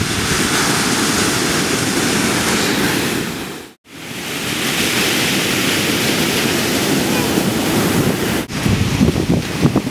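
Ocean surf breaking and washing up on a sandy shore, a steady rushing noise, with wind buffeting the microphone in gusts that are strongest near the end. The sound cuts out for a moment about four seconds in.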